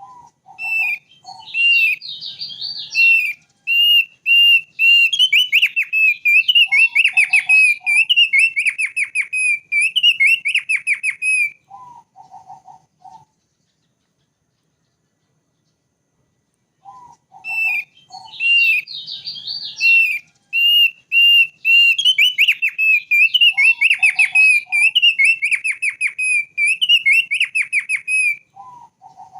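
Thick-billed heleia (opior paruh tebal) singing a long, loud, whistled song of rapid trills and chirps, mixed with short lower notes. The song breaks off about halfway through for a few seconds, then the same phrase comes again.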